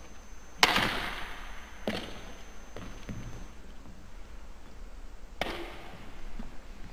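Badminton racket striking shuttlecocks in forehand net kills: sharp cracks that ring on in an echoing sports hall. The loudest comes about half a second in, a second follows near two seconds, and a third comes past the five-second mark.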